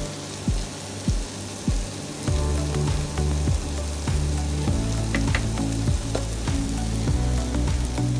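Minced chicken sizzling and crackling in a frying pan as it is stirred with a spatula, over background music with a steady low beat that fills out about two seconds in.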